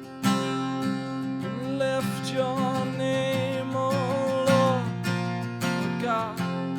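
Worship music led by strummed acoustic guitar, with a held, gliding melody line over the chords from about a second and a half in.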